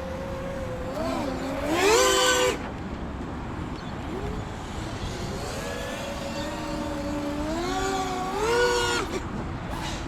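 Brushless motors and propellers of a 5-inch freestyle FPV quadcopter whining, rising sharply in pitch on two throttle punches, about two seconds in and again near the end, over a steady low rush.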